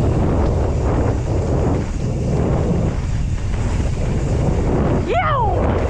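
Wind buffeting the action-camera microphone while a Pyga Hyrax enduro mountain bike rolls fast down a dirt forest trail, the tyres rumbling over the ground. Near the end a voice gives one short whoop that falls in pitch.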